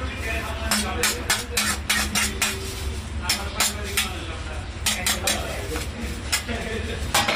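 Steel serving spoon scraping and clinking against a large metal pot and a metal plate as rice is dished out: a run of irregular sharp clinks over a steady low hum.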